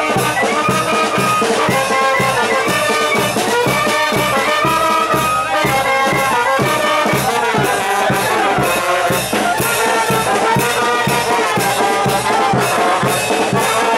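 Brass band music with a steady drum beat: held melody notes that step up and down over a regular pulse.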